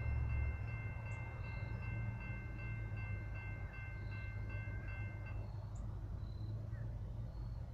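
Low steady rumble of distant Norfolk Southern diesel locomotives approaching with a freight train. A thin steady high tone over it stops about five seconds in.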